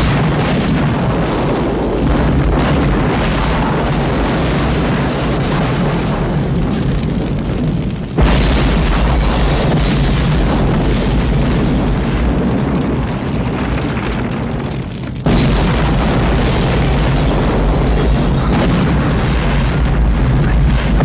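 Sound effect of a house being blown apart by explosions: a big blast at the start, another about eight seconds in and a third about fifteen seconds in, each followed by a long, deep, continuous rumble.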